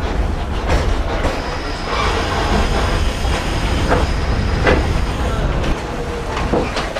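Interior ride sound of a vintage electric railway car rolling along track: a steady low rumble with a few sharp clacks of the wheels over rail joints. A faint, thin high whine runs through the middle.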